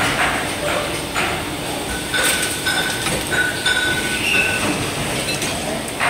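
Injection moulding machine running: steady mechanical noise with light clinks, and a high whine that breaks on and off for a couple of seconds in the middle.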